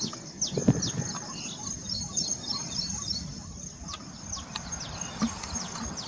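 Small birds chirping in quick, falling notes over a steady high insect drone; a second, higher insect buzz joins about four seconds in. There is a single thump about a second in.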